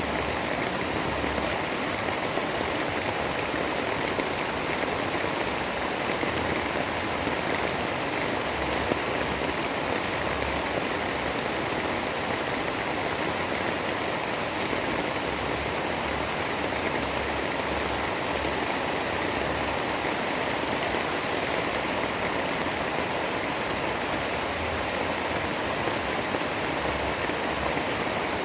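Steady, heavy rain sound: an even, unbroken rushing hiss with no separate drops or thunder standing out.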